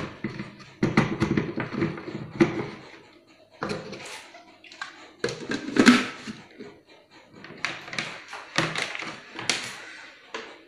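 Irregular plastic knocks and clicks from a small blender jar being handled and its lid pressed on, the loudest about six seconds in.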